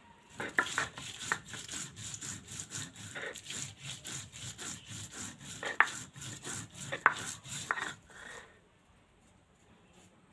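Stone roller grinding green chillies, ginger and culantro leaves into chutney paste on a flat stone grinding slab (shil-nora): repeated rough rubbing strokes with a few sharp knocks, stopping near the end.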